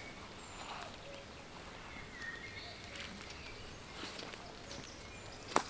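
Footsteps through wet grass and leaf litter, with faint short bird calls in the background. A sharp crack sounds once, near the end.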